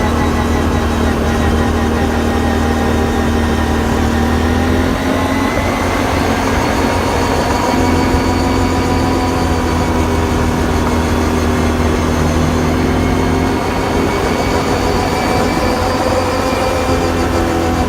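Can-Am Renegade 570 ATV's V-twin engine and drivetrain running under steady throttle, with a constant whine over the engine note whose pitch shifts slightly a few times. The whine is the owner's unexplained complaint, present since the machine was new and most obvious at normal riding speeds with steady throttle.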